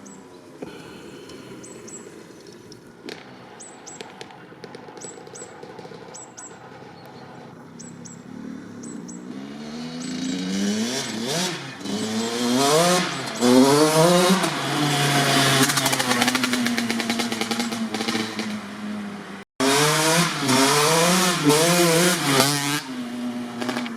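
Honda CR85's 85cc single-cylinder two-stroke engine, through a Pro Circuit R-304 shorty silencer, running low and steady for about ten seconds. It is then revved up and down again and again, its pitch rising and falling. The sound cuts out for a moment about two-thirds through, the revving resumes, and it falls back to a low steady note near the end.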